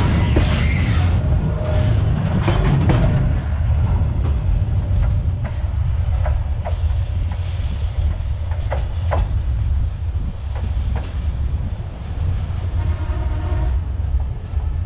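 Container freight train rolling away on the track: the last wagons clatter past at first, then the rumble of the wheels fades slowly as the train recedes, with a scattering of sharp clicks from the rails in the middle.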